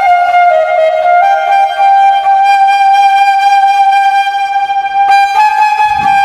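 Bamboo flute (bashi) playing a slow melody: after a short rise it holds one long note for about four seconds, then steps up to a higher note near the end.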